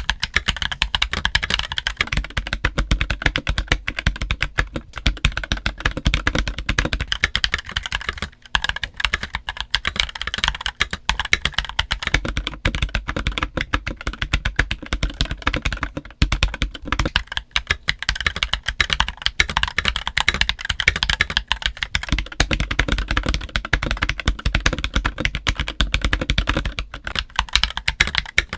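Fast, continuous typing on an MK870 mechanical keyboard with JWK Black linear switches and DCX keycaps: a dense clatter of keystrokes. The sound alternates between the stock steel-plate build and the polycarbonate-plate build, with brief breaks about eight and sixteen seconds in.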